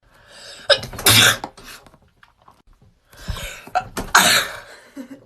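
A person sneezing twice, each a short intake followed by a sharp, explosive burst, the second about three seconds after the first.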